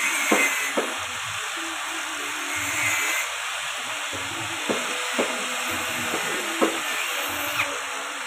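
Electric-motor-driven JG 25 chopper-grinder running, its spinning blades shaving a wooden block pushed in by hand: a steady grinding hiss with sharp clicks now and then as the block catches the blades.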